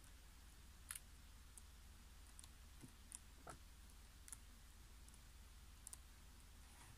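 Near silence, with a few faint, scattered clicks from the paper pages of a softcover book being turned and handled.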